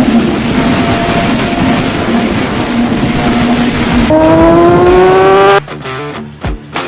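Motorcycle engine running under way with wind noise. About four seconds in, it revs up in a rising pitch for a second and a half, then cuts off suddenly, followed by a few sharp cracks.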